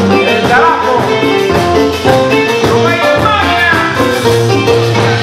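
Live Latin tropical band music with electronic keyboards and a steady beat, and a lead singer's voice.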